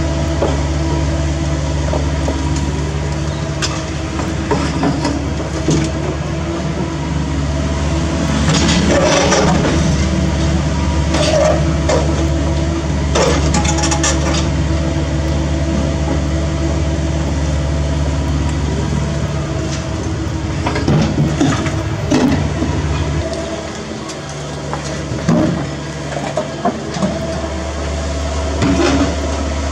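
CAT 305E2 mini excavator's diesel engine running steadily under hydraulic load while its bucket digs and scrapes through broken concrete and brick rubble. Scattered clunks and cracks of debris are heard, most of them in the middle and last third.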